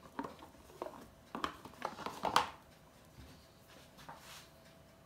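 A few light clicks and scrapes of a kitchen utensil against a plastic tub as softened butter is scooped into it on a kitchen scale, the loudest knock about two and a half seconds in, then quiet.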